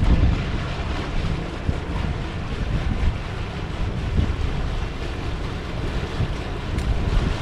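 Wind buffeting the microphone outdoors, in uneven low gusts over a steady rushing noise.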